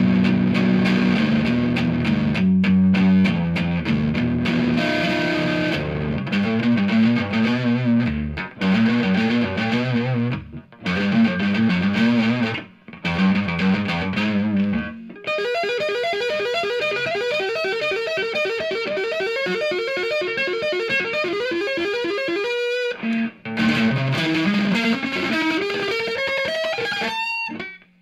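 Electric guitar with a P90 rhythm pickup, tone knob up, played through a Monoprice 15-watt tube amp with the gain at max. It plays low chords in short bursts with brief stops for about the first half. After that come picked single-note lines, with a rising run near the end.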